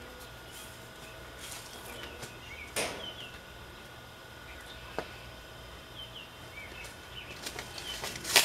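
Small birds chirping faintly and intermittently in the background over a steady faint hum. A few short rustles and one sharp click come from hands handling the seedling trays, the loudest rustle near the end.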